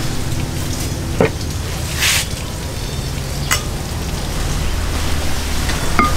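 Hot cooking oil sizzling steadily as food deep-fries in a pot. There is a brief louder hiss about two seconds in and a few light clicks.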